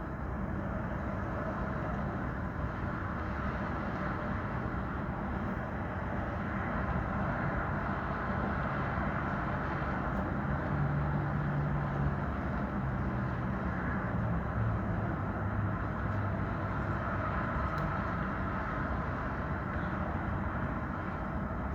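City street traffic ambience: a steady wash of passing vehicles. Partway through, a low engine hum, such as an idling or slowly passing truck or bus, rises above it for several seconds and drops slightly in pitch.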